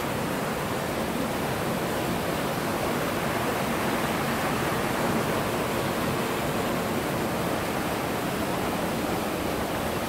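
Steady rushing of running water.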